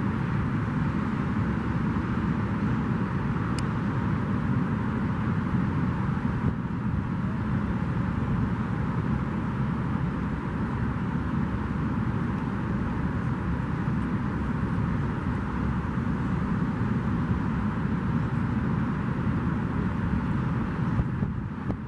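Steady outdoor background noise: an even low rumble with hiss above it, with no distinct events.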